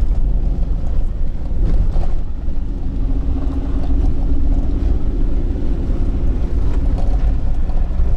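Inside the cabin of an SUV driving on a rough dirt track: a loud low rumble of engine and tyres on the unpaved surface, with occasional knocks and rattles from the bumps. A steadier engine drone is clearest through the middle.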